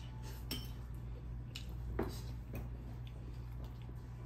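A fork clinking and scraping against a bowl while eating: a few separate clinks, the loudest about two seconds in, over a steady low hum.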